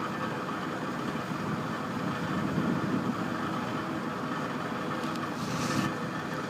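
Truck engine running at a steady idle, a low even rumble, with a brief hiss about five seconds in.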